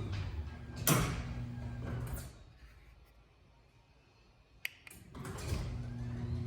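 Chamberlain B750C belt-drive garage door opener running with a steady hum; about a second in there is a loud thump, the motor stops a little after two seconds, a sharp click sounds near the end of the quiet gap, and the opener starts humming again about five seconds in.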